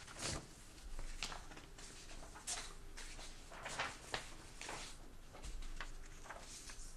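Sheets of paper being handled and slid across a desk, a string of short, irregular rustles and scrapes.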